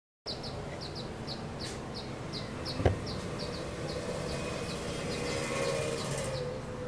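A small animal's high chirp repeating about three times a second over steady background noise, with one sharp click about three seconds in.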